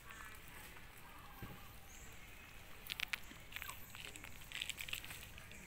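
Macaques picking up and chewing food on the ground: faint sharp clicks and rustles, with a cluster about three seconds in and more near the end.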